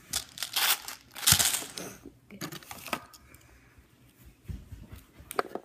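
Plastic candy bar wrapper crinkling and tearing as it is opened by hand, in two loud bursts of rustle in the first two seconds, then fainter crinkles and clicks.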